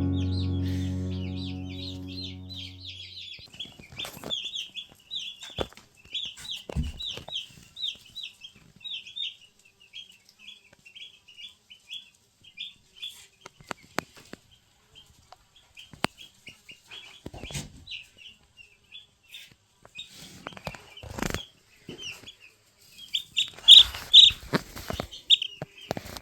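A brood of day-old meat chicks peeping, a dense run of short, high cheeps with a louder flurry near the end, and a few sharp knocks among them. Background music fades out over the first few seconds.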